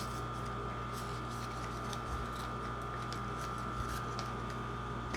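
A steady electrical hum with faint, scattered clicks and taps of small containers being handled.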